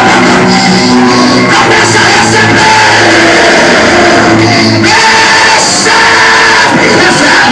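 Loud worship music with singing, and voices shouting over it.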